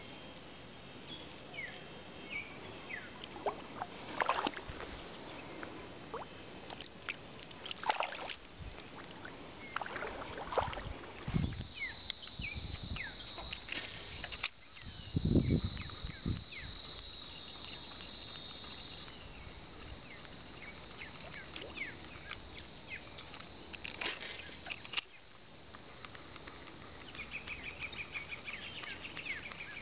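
Shoreline ambience: water sloshing, with scattered splashes, clicks and short high chirps. A steady high tone runs for several seconds midway.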